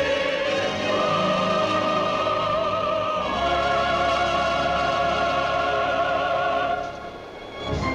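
Orchestral cartoon score with a sustained, wavering melody line over held chords, dropping quieter near the end.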